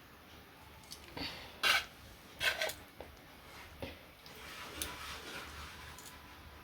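Kitchen dishes and utensils being handled: a few short clinks and scrapes, the loudest two a little under a second apart near the middle.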